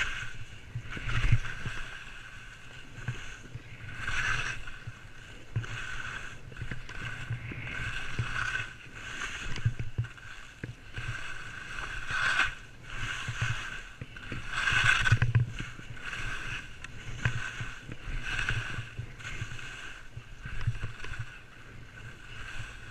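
Alpine skis scraping and hissing over snow through a run of turns, swelling with each turn every second or two.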